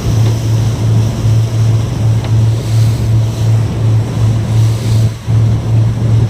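RNLI lifeboat engine running under way, a loud low hum that pulses about three times a second, with water rushing along the hull and wind on the microphone.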